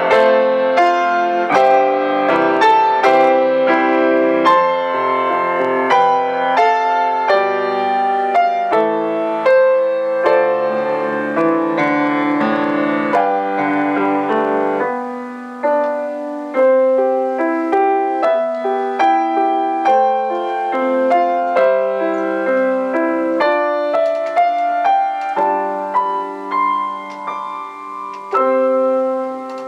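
Solo grand piano playing a flowing piece of chords and melody; the playing thins out and gets softer about halfway through.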